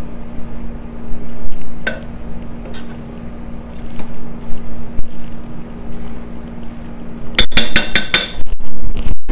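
Metal spoon stirring a thick ground-beef, bean and cheese mixture in a Crock-Pot's stoneware insert, scraping and clinking against the pot, with a quick run of sharp clinks near the end.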